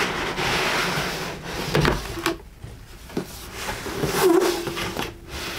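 Large corrugated cardboard shipping box being opened by hand: the lid pulled loose and the flaps dragged back, cardboard scraping and rubbing, with a couple of knocks and a short squeak about four seconds in.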